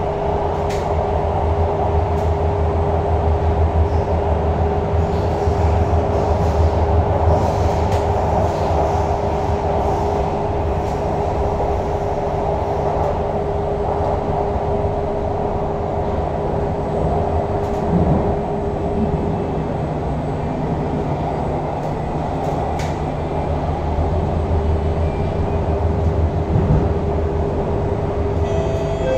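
Cabin running noise of a Kawasaki-CRRC Qingdao Sifang CT251 metro train under way: a steady rumble of wheels on track with a constant hum throughout.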